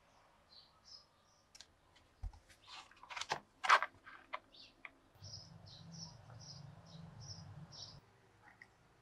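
Small birds chirping in repeated short, high notes. About three to four seconds in, a foil tea pouch crinkles as it is handled, the loudest sound. A low hum runs through the second half.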